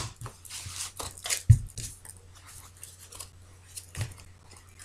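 A deck of oracle cards shuffled by hand: soft sliding and flicking of the cards against each other, with a sharper tap about one and a half seconds in and another near four seconds.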